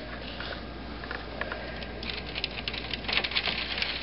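Hailstones pattering down in a heavy hailstorm: a steady hiss full of small sharp ticks, which grow thicker and louder about two seconds in.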